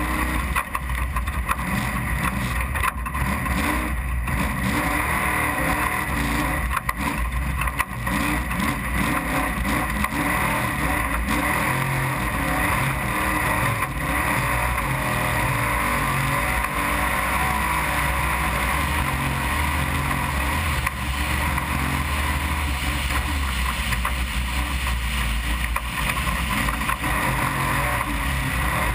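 Desert-racing trophy truck engine running hard under load during a flat-out lap, rising and falling in pitch over the first several seconds and then holding a steady high drone.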